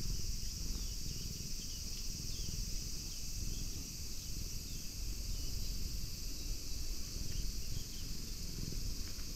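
Steady high-pitched insect chorus, with faint short chirps repeating every half second or so and a low rumble underneath.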